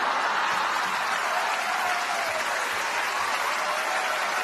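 Audience applause, starting abruptly and holding steady.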